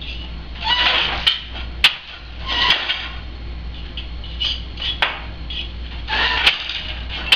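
Weaving on a wooden countermarch floor loom: shuttles sliding across the shed with short rustling whirs, and the beater knocking the weft into the cloth, about five sharp wooden knocks.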